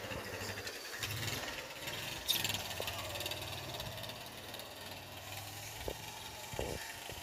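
A steady low engine hum runs under crinkling of a plastic bag, with the sharpest crackle about two seconds in.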